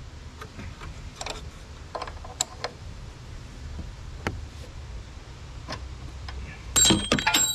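Light metal clicks and taps of locking pliers and a wrench on the front air strut's valve fitting as it is gripped to be cracked loose. About seven seconds in comes a quick cluster of loud metallic clanks that leave a ringing note.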